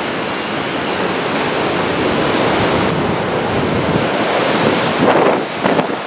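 Typhoon wind and driving rain making a loud, steady rushing noise, with gusts buffeting the microphone about five seconds in.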